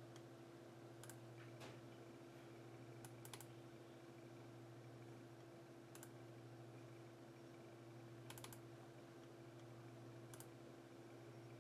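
Near silence over a faint steady low hum, broken by a few scattered sharp clicks of computer keys or a mouse, some in quick pairs.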